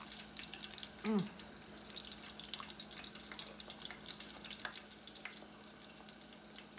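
Samosas deep frying in hot oil in a saucepan: a steady sizzle with many small crackling pops.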